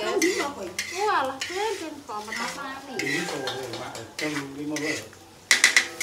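Food being stirred and scraped around a cooking pan with a utensil, with a light sizzle of frying. The scrapes give short squeaks, and there is a louder clatter of utensil on pan near the end.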